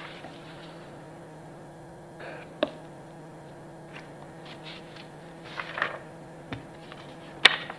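Quiet room tone with a steady low hum, broken by a few small sharp clicks and knocks, the sharpest near the end.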